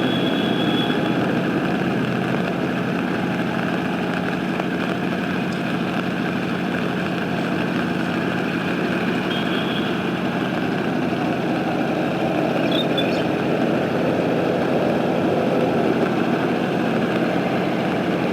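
An engine running steadily at constant speed, with a few brief high chirps over it.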